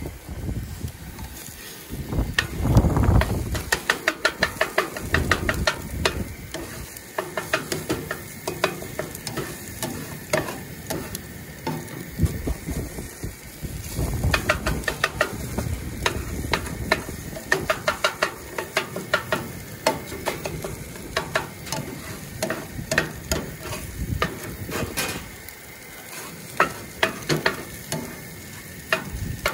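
Scrambled eggs and hot dogs sizzling in a nonstick frying pan on a camp stove, with a silicone spatula scraping and tapping against the pan again and again as the food is stirred. A brief low rumble comes about two to three seconds in.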